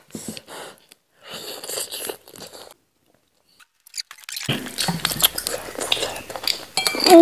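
Close-miked eating sounds of a cooked goat head being pulled apart by hand, with clinks of tableware and chewing. A short dead silence a little before the middle, then denser wet clicks and crackles.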